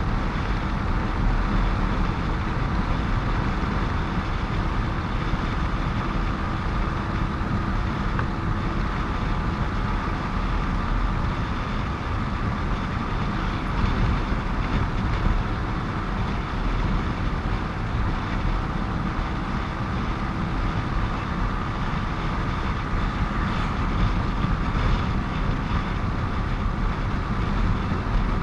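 Steady noise of riding a motorcycle along a busy highway: engine, tyre and traffic noise with wind rumble on the microphone, and a faint steady whine.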